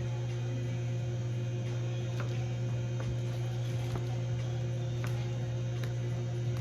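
A steady low hum, with a few faint, short clicks now and then.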